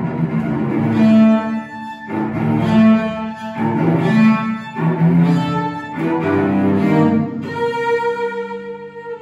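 Solo cello played with the bow in a run of short phrases, with digital piano accompaniment, ending on a longer held note that slides down near the end.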